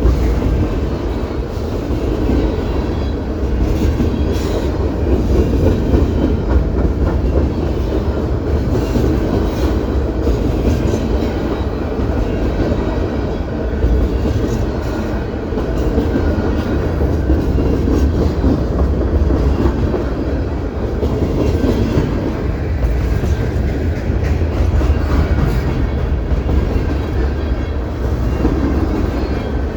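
CP Rail train running on the track: a steady low rumble with the clatter of wheels over the rails, unbroken throughout and with no horn sounding.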